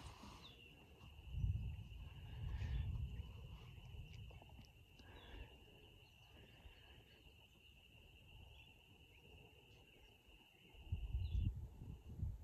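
A steady high-pitched insect drone that cuts off briefly near the end, with a few faint bird chirps. Two spells of low wind rumble on the microphone, one after about a second and one near the end, are the loudest sounds.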